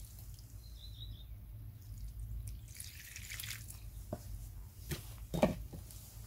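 Water dripping in scattered drops from a freshly watered potted plant, with a few sharper drips about four to five and a half seconds in.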